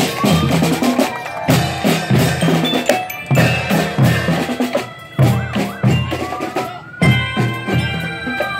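Children's marching drum band playing a brisk beat: bass drums and marching drums with clashing cymbals, a glockenspiel ringing over the top, and melodicas. A long tone rises and then falls near the end.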